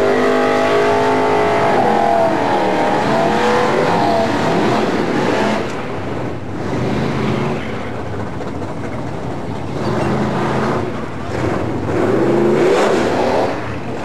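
A car engine revving, rising and falling in pitch, loudest over the first five seconds or so. It then drops to a lower, rougher running with a few shorter rises in pitch, the last near the end.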